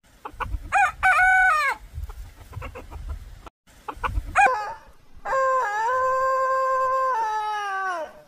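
Rooster crowing twice, each crow preceded by a few short notes. The first crow, about a second in, is short. The second, from about five seconds in, is held level for nearly three seconds and falls away at the end.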